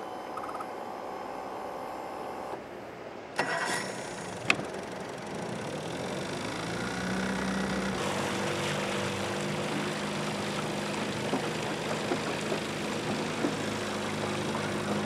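Small Evinrude outboard motor starting up and then running steadily as the boat moves off, the engine picking up speed around six to eight seconds in.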